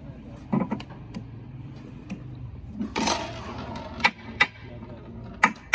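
Metal tools and engine parts clinking and knocking as they are handled: several separate light strikes, with a brief scraping rush about three seconds in, over a low steady hum.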